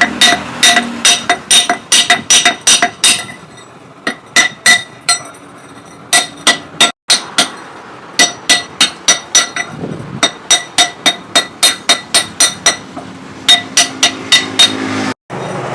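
Blacksmith's hammer striking hot steel on an anvil, each blow ringing, about three to four blows a second, with a short lull near the middle.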